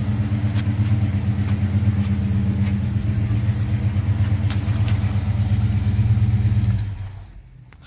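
1970 Pontiac 400 V8 idling steadily, then switched off about seven seconds in, the engine note dying away.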